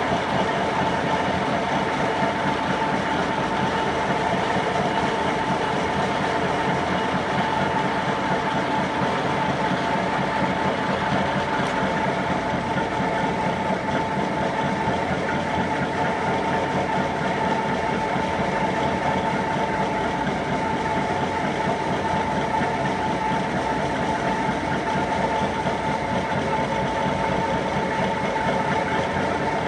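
Fellows Model 4-60 rack gear shaper running under power: a steady mechanical clatter with a constant high whine over it.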